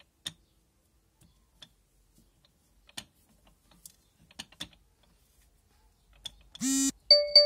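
Scattered light clicks and taps of a hand on the hard plastic head of a Spin Master interactive robot cat toy, pressing its touch sensors. Near the end the toy answers with a short electronic tone, then a bright ringing chime that fades.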